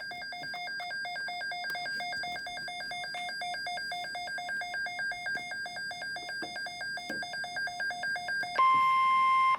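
Weather alert radio sounding its alarm: a rapid pulsing electronic warble for about eight and a half seconds, then a louder steady single-pitch tone, the weather radio warning tone, for about a second before it cuts off.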